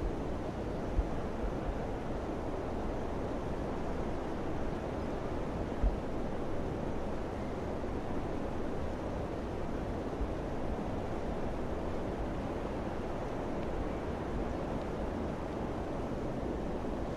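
Steady wind noise, a dense low rush with no gaps, with two brief low thumps, about a second in and near six seconds, as gusts hit the microphone.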